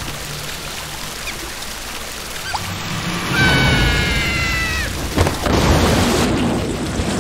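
Cartoon water sound effects: a hissing spray of water from a character's mouth, a high-pitched cry that falls slightly in pitch about three and a half seconds in, then a heavy gush of water.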